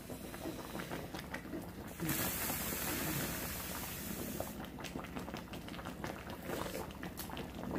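A stainless pot of napa cabbage and doenjang soup boiling hard on a gas stove: steady bubbling and crackling, with a stretch of louder, even hiss in the middle.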